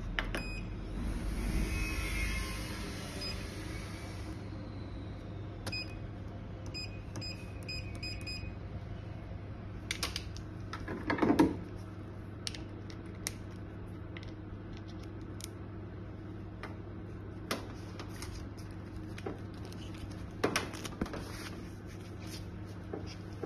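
BTL Exilis RF aesthetic machine being switched on and set up: a steady electrical hum, a hiss for the first few seconds, and a run of about six short beeps from its controls a few seconds later. Scattered clicks and one louder handling thump near the middle come from the unit and its applicator being touched.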